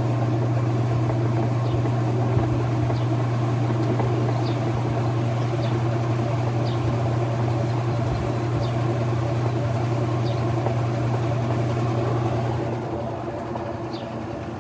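Whirlpool Direct Drive top-load washing machine running in its spin cycle, a steady motor hum with the drum turning. The sound eases off near the end, as the spin begins to slow.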